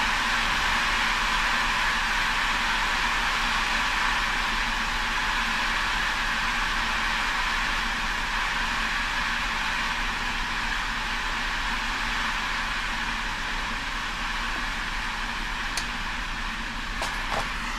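Steady hiss and fizz of burning ammonium dichromate decomposing into chromium oxide ash, slowly dying down, with a few faint clicks near the end.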